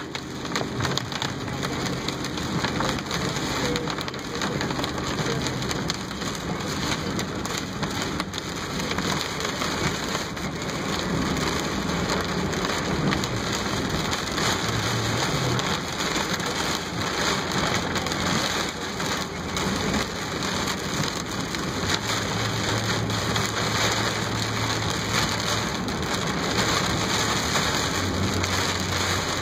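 Heavy rain pelting a car's roof and windshield, heard from inside the cabin: a dense, steady patter, with a low hum of the moving car underneath at times.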